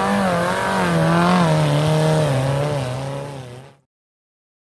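Vehicle engine running at high revs, its pitch slowly falling and wavering as it winds down, then cut off abruptly into silence near the end.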